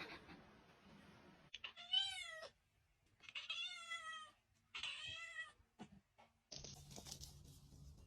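A cat meowing three times, each meow rising and then falling in pitch, the middle one the longest. A steady low hum starts near the end.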